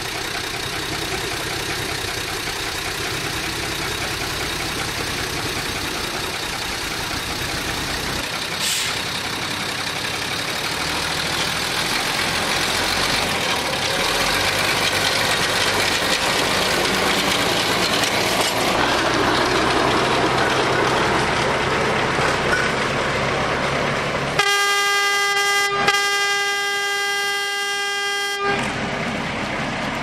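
Small narrow-gauge forest-railway diesel locomotives and a rail motor car running past on the track, a steady rumble of engines and wheels. About 24 seconds in, a train horn sounds, a brief toot and then a longer blast of about two and a half seconds.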